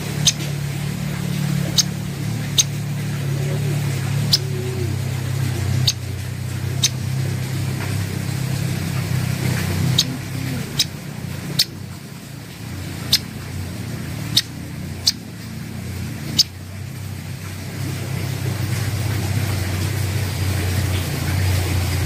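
A steady low mechanical hum, like a running engine, with about a dozen sharp short clicks scattered irregularly through it.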